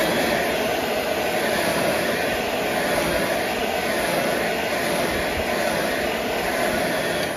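Handheld electric heat gun running steadily, its fan blowing hot air over freshly airbrushed white paint on spinner blades to dry it.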